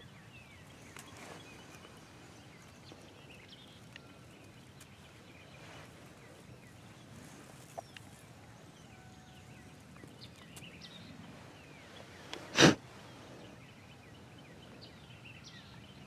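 Quiet woodland background with faint, scattered bird chirps, broken about twelve and a half seconds in by one loud, very short burst of noise.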